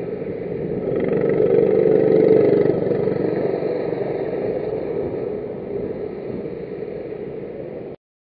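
F-400 racing kart engines running on the circuit, growing louder to about two seconds in and then fading slowly as the karts move away. The sound cuts off abruptly near the end.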